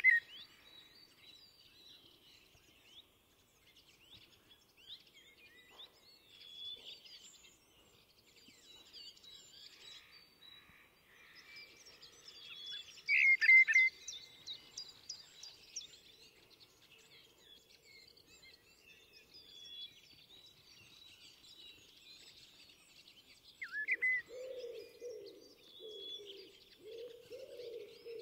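Common blackbird singing: clear fluty phrases mixed with high twittering, the loudest phrase about halfway through. Near the end a low, rough, repeated sound comes in alongside the song.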